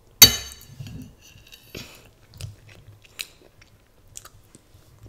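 A metal spoon strikes a ceramic bowl with a sharp clink just after the start, the bowl ringing briefly. A few small spoon clicks and scrapes follow, along with soft chewing of rice.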